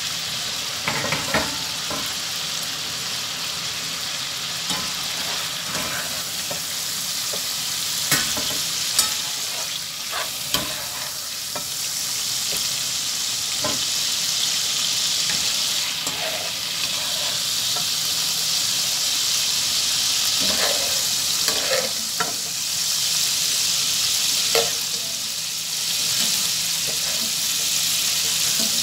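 Chicken strips sizzling in hot oil and butter in a frying pan over high heat, with a spatula and slotted spoon clattering and scraping against the pan now and then as the pieces are lifted out.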